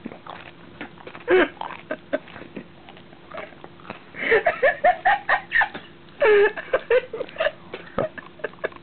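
A man's wordless vocal reactions to the burn of ghost chili salsa: a falling groan about a second and a half in, then a run of short laughs around the middle and one more loud cry just after, with small chewing clicks between.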